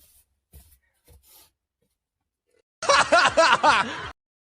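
A short burst of laughter, about a second long, starting about three seconds in, after a few faint soft sounds.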